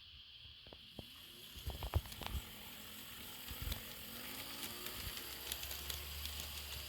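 Kato Southern Pacific SD7 model locomotive running on the track, a faint steady whir with a few light clicks about two seconds in. With the piece of ballast picked out of its gears, it runs without the clicking that the ballast caused.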